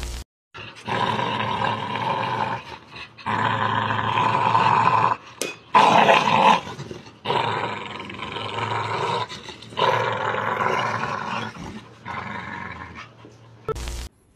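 Dogs growling while they tug on a rope toy, in about six long bouts of a second or two each, separated by short pauses.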